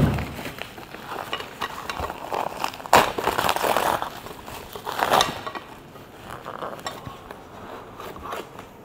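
White foam packaging inserts being lifted out of a box and handled, rubbing and knocking together in irregular small clatters, with louder rubbing bursts about three seconds in and again about five seconds in.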